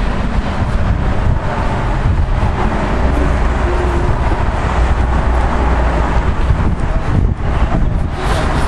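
Loud, steady outdoor background noise with a heavy low rumble, of the traffic-and-wind kind.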